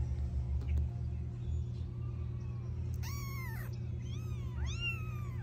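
Young F5 Savannah kittens mewing: a faint mew about two seconds in, then a loud high mew and two quick arching mews near the end, over a steady low hum.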